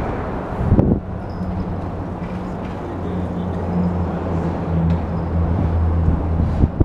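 A vehicle running with a steady low hum, with a short thump about a second in and a sharp knock near the end.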